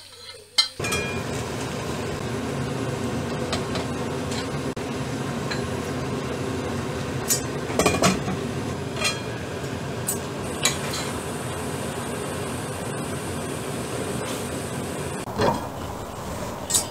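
Pork and kimchi cooking in a stainless steel pot, with a steady sizzle under a scattering of sharp clinks from utensils and the pot's glass lid.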